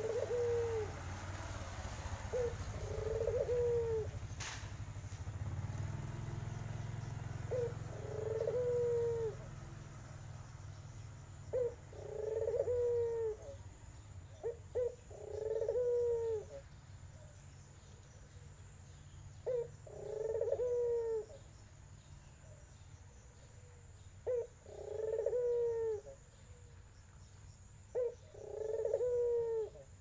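Tangerine-coloured puter (ringneck/Barbary) dove cooing: a short note, then a longer coo, repeated about every four seconds, eight times in all.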